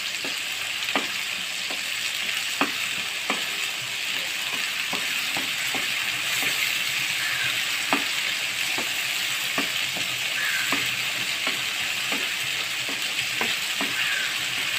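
Food sizzling as it fries in hot oil in a pan, with a spatula now and then clicking against the pan.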